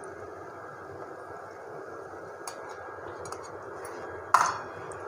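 Onions, cashews and ground spices sizzling gently in hot oil in a pan, a steady low hiss. There are a few faint clicks, then one sharper clink near the end.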